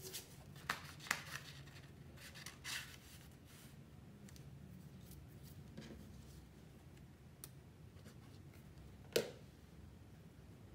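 Scrapbook paper and craft pieces being handled: faint rustling with a few scattered clicks and taps in the first few seconds, and one sharper tap about nine seconds in.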